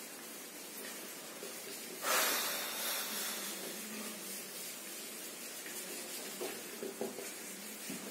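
Whiteboard eraser rubbing marker writing off a whiteboard: soft swishing strokes, the loudest about two seconds in, over a steady faint hiss.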